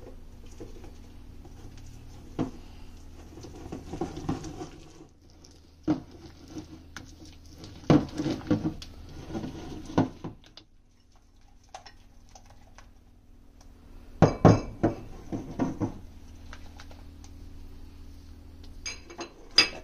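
Hand whisking of batter in a glass bowl: a wire whisk clinking and scraping against the glass in irregular runs, with a quieter pause of a few seconds past the middle.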